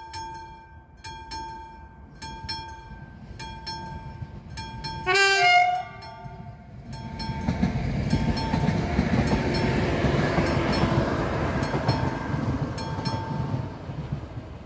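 Level-crossing mechanical bell ringing with regular strokes, about one a second. About five seconds in, a train sounds a short, loud horn blast, then passes over the crossing with a building rush of wheel and rail noise. The bell stops near the end as the crossing clears.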